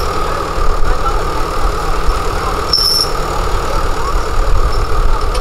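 Bulldozer's diesel engine running steadily at idle: a low rumble with a constant whine over it. A brief high squeak sounds about three seconds in.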